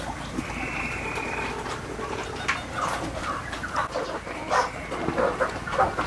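A flock of desi chickens, hens and roosters, clucking and calling. One held high call lasts about a second early on, then a run of short clucks and squawks follows from about two and a half seconds in.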